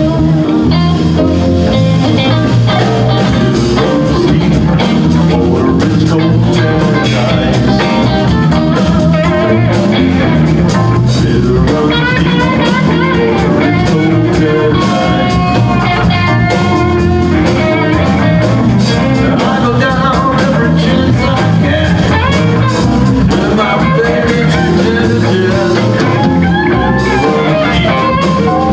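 Live blues band playing an instrumental passage between verses: electric guitars, bass guitar, drum kit and keyboard, with a wavering lead line over a steady beat.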